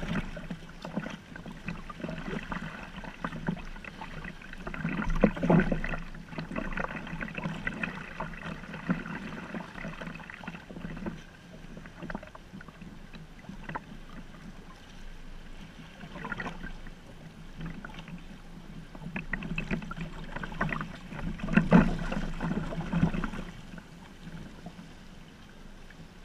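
Water splashing and lapping against a sea kayak's hull as it is paddled through choppy water, heard close to the waterline. There are louder surges of splashing about five seconds in and again around twenty-two seconds in.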